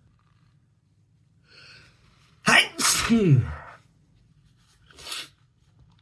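A congested person sneezes loudly about two and a half seconds in, after a short breathy intake; the sneeze ends in a voiced sound falling in pitch. A quick sniffle follows near the end.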